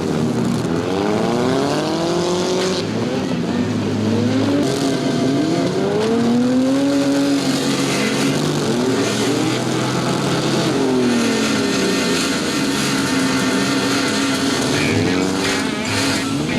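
Demolition derby cars' engines revving hard, several at once, their pitch climbing and dropping over one another, over a steady wash of noise.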